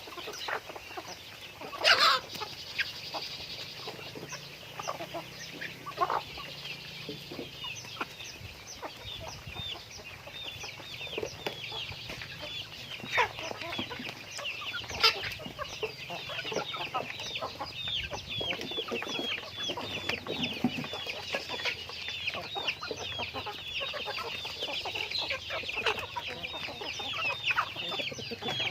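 Chickens calling and clucking: a steady run of short, high calls several times a second, with a few louder single calls.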